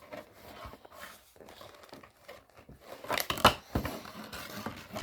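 Handling of a bag and its packaging: soft rustling, then louder crinkling bursts about three seconds in and again right at the end.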